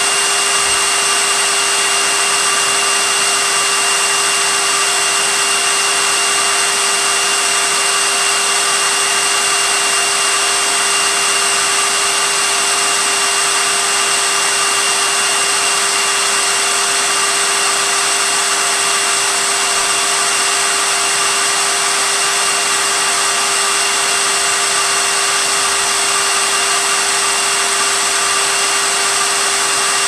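Vacuum cleaner running steadily: an even rushing hiss with a constant whine, no change in pitch or loudness.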